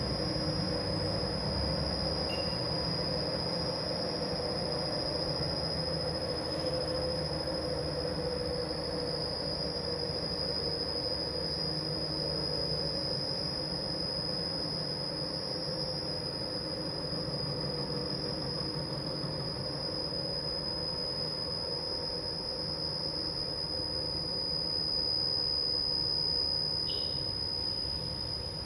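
Carpet spinner running steadily, its motor-driven stainless drum spinning with a steady rumble and a constant high-pitched whine.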